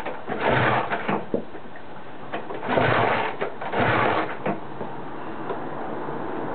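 Triumph Thunderbird engine being turned over in three short start attempts, clattering briefly each time without firing up: the bike fails to start through its ignition switch, which is faulty.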